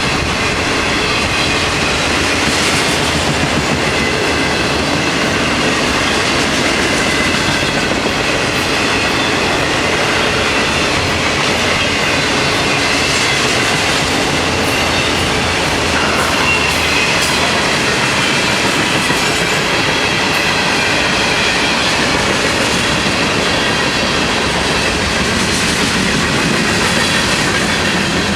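Freight train cars rolling steadily past, wheels clattering over the rail joints, with a faint high wheel squeal.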